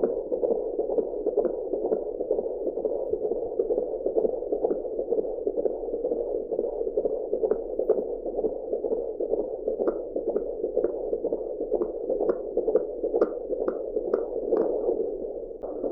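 Fetal heartbeat picked up by an AngelSounds handheld Doppler: a rapid, steady, rhythmic whooshing pulse, with a few faint clicks in the second half.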